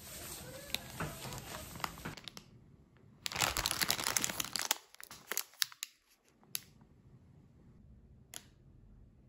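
Plastic packaging being handled: a rustling, then a loud rustle lasting over a second about three seconds in, followed by a few sharp clicks.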